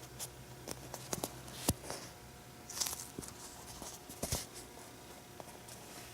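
Hands squeezing and handling a squishy foam toy: soft rustling squishes with scattered light taps and clicks, and a short louder rustle about three seconds in.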